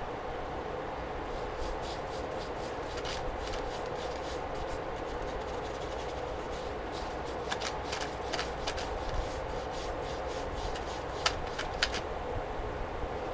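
Faint rubbing of a paintbrush working colour onto paper, with scattered light ticks and two sharper clicks near the end, over a steady hum.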